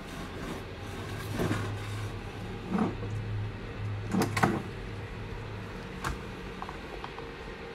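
A steady low room hum with about five soft knocks and taps spread through it, the sharpest a short click late on.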